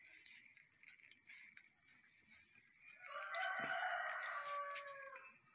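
A single drawn-out animal call, about two seconds long, starting about three seconds in and falling in pitch at the end.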